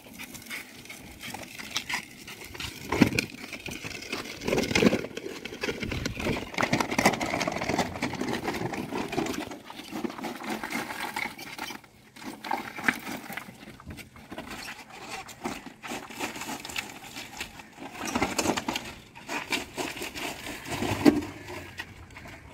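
Homemade steel wheelbarrow loaded with broken concrete being wheeled and tipped out, its rubble load rattling, scraping and clattering, with several sharp knocks.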